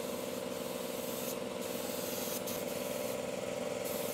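Compressed-air paint spray gun hissing steadily over the even hum of the air compressor feeding it. The hiss thins briefly twice, about a second and a half in and again past the three-second mark.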